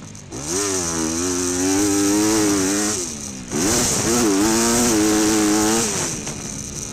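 Motocross bike engine revving hard through two long pulls on the throttle, each time easing off briefly: once about three seconds in and again near the end.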